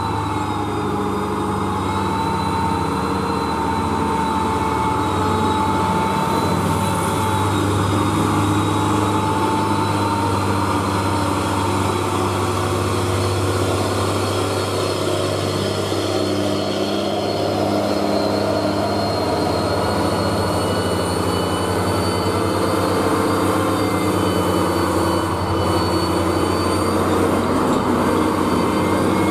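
UD Quester heavy trucks' diesel engines labouring as they crawl up a steep climb loaded with steel reinforcing bar, making a steady low drone with high whining tones that drift slowly in pitch.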